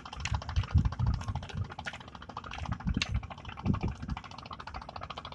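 A long, slender fish thrashing on a slatted bamboo deck: a rapid patter of light taps with low thumps, in a flurry in the first second and again about three seconds in, and a few sharp knocks.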